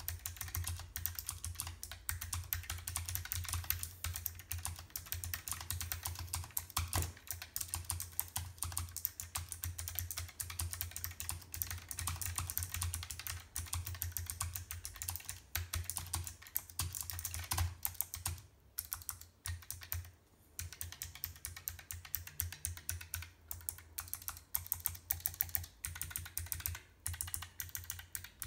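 Keychron K1 v4 low-profile mechanical keyboard with clicky Gateron Blue switches being typed on, a fast stream of key clicks with a couple of short pauses about two-thirds of the way through.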